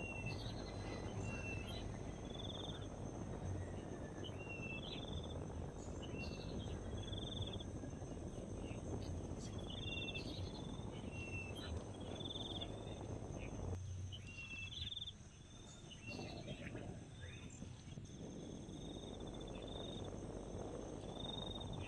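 Insects droning steadily on high unbroken tones, with a bird repeating short whistled chirps and brief buzzy trills every second or so. A low steady rumble lies underneath and eases off for a moment about two-thirds of the way through.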